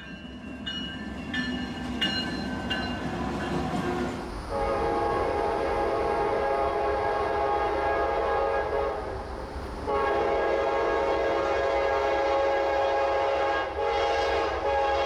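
Air horn of a CSX GE CM44AC freight locomotive blowing long blasts as the train approaches. A low rumble comes first, then the horn chord starts about four seconds in, breaks for about a second, sounds again, and dips briefly before carrying on.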